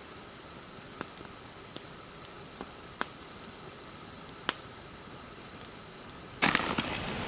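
Beans cooking on a camp stove: a faint steady sizzle with a few sharp pops now and then. About six seconds in, a much louder rush of noise starts suddenly.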